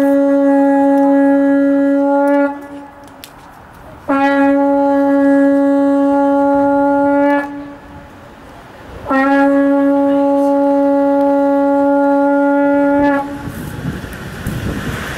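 A hornblower's curved horn sounding long, steady blasts on a single low note: the tail of one blast, then two more of about three to four seconds each with short gaps between. These are the blasts sounded to set the watch.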